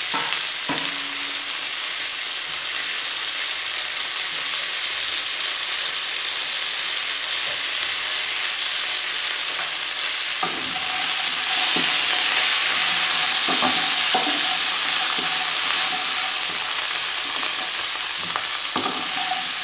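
Sliced onions and spring-onion stalks sizzling in a little mustard oil in a nonstick wok. A wooden spatula stirs and knocks against the pan now and then. The sizzle grows louder about halfway through.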